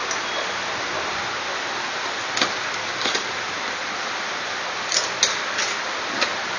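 Cardboard camera box being handled and its end flap pulled open: a handful of short scrapes and taps over a steady hiss.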